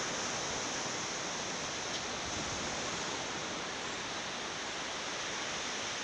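Small waves breaking on a sandy beach, heard as a steady wash of surf.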